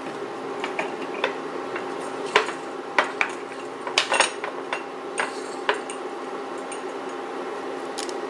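Light clicks and clinks in and against a wok as whole peppercorns are dropped into the soy-sauce braising liquid, scattered at first and bunched about four seconds in, over a steady low hum.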